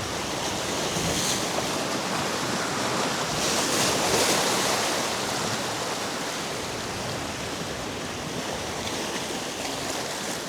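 Sea surf washing steadily, with wind buffeting the microphone; a louder wash swells up about four seconds in.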